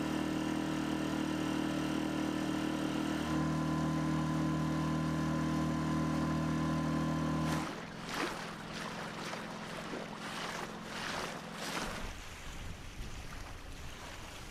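Small boat's outboard motor running steadily, its note shifting about three seconds in, then ending abruptly about eight seconds in. After that, water and wind noise with irregular gusts.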